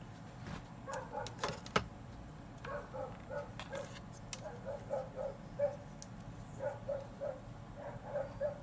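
An animal's short, pitched calls in quick runs of three or four notes, with light clicks and one sharper tap of small parts being handled on a workbench.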